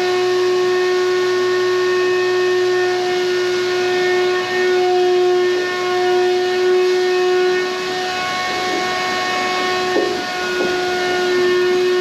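Used oil shop heater running with a steady whistling hum at one constant pitch. A few small knocks come in the second half.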